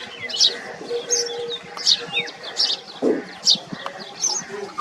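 House sparrows chirping: a steady series of short, high chirps, about two a second. A brief lower sound breaks in about three seconds in.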